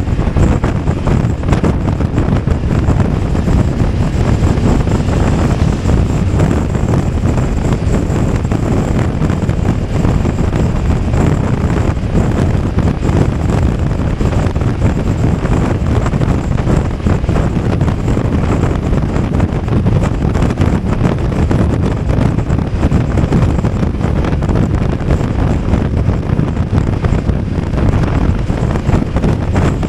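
Heavy wind noise on the microphone of a BMW 850 GS motorcycle riding at a steady pace, with the bike's engine and tyres droning underneath.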